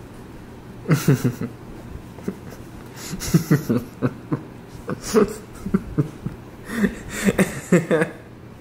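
A person's voice in short bursts of several syllables each, with no clear words.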